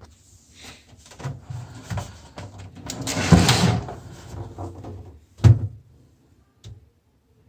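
Clattering and knocking of things being handled, loudest about three to four seconds in, then one sharp knock about five and a half seconds in and a single small click after it.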